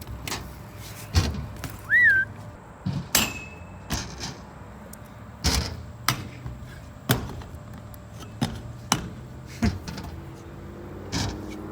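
BMX bikes being ridden: an irregular series of sharp knocks and thuds from tires and frames landing and hitting hard surfaces, with a brief high chirp about two seconds in.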